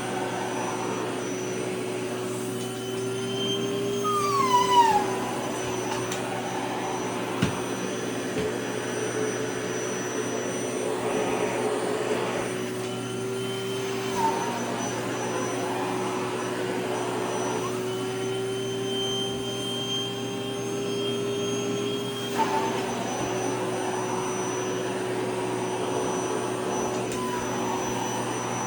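Vacuum cleaner running with a steady whine, the pitch shifting briefly and the sound getting louder about four to five seconds in, and shifting again a few more times, as a skirt is drawn into the nozzle.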